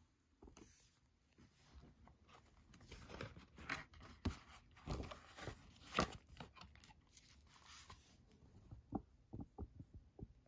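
Stiff paper pages of a ring binder being turned and handled: soft rustling with scattered light taps and clicks. The sharpest click comes about six seconds in, as fingers work a page around the metal rings.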